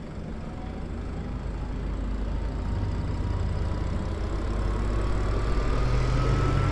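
Lyric Graffiti e-bike on the move: a steady low rumble of wind and road noise with a thin electric-motor whine that rises slowly in pitch as the bike picks up speed, all growing gradually louder.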